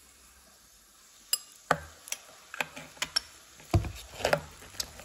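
Irregular sharp clicks and knocks of things being handled close to the microphone. They begin after a quiet first second or so, with the loudest a dull knock near four seconds in.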